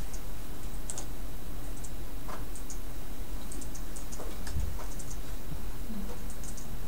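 Light clicks from a computer mouse and its scroll wheel, a few at a time in small scattered clusters, over a steady low background hum.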